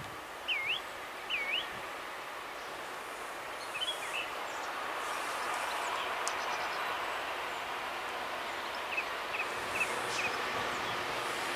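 A distant train approaching on the main line: a steady rushing rail noise that slowly grows louder. A bird gives two short swooping chirps near the start, with a few brief chirps later.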